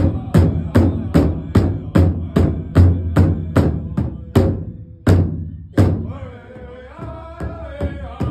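Powwow-style big drum struck in unison by several drummers in a steady fast beat, about three strokes a second. Around five seconds in come two heavier, spaced-out strokes, then the beat carries on softer while men's voices come in singing over it.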